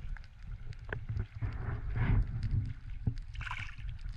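Sea kayak paddling: paddle strokes splashing and water moving against the hull, a couple of swells of splashing about a second and a half apart, over a low rumble of wind buffeting the action-camera microphone.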